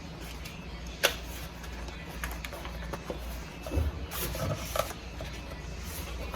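Handling of an eyeshadow palette and its packaging: a sharp click about a second in, a few lighter ticks, and a spell of rustling about four seconds in.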